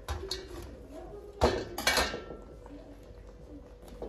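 Kitchen knife and meat clinking against a stainless steel tray while cooked beef is cut from the bone, with two loud ringing clanks about a second and a half in and at about two seconds.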